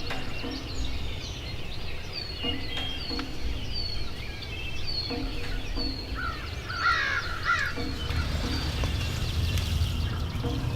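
Early-morning woodland birdsong: many birds chirping with repeated high down-slurred notes. About two-thirds of the way through comes a burst of louder, harsher calls.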